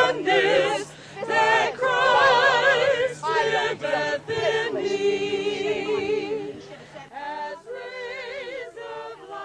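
A group of voices singing a hymn unaccompanied, with marked vibrato; the singing drops to a quieter level after about seven seconds.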